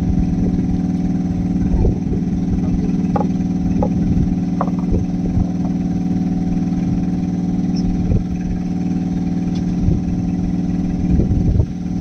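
Engine aboard a fishing boat idling steadily, a constant low hum, with a few light knocks and clicks now and then.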